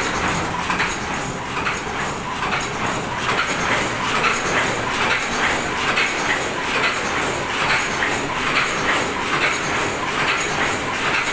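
Automatic paper cup making machine running, a fast, steady rhythmic mechanical clatter.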